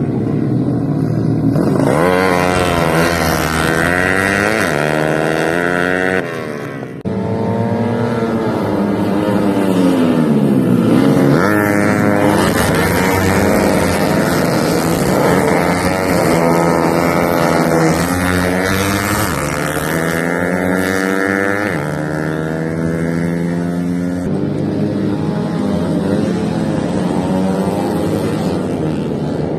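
Tuned 125 cc four-stroke underbone race motorcycles at full throttle. The engine pitch climbs and drops again and again as the riders shift through the gears, and at times more than one engine can be heard.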